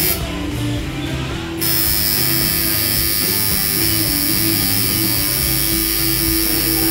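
An electric tattoo machine starts buzzing about a second and a half in and keeps running steadily against the skin, over background music.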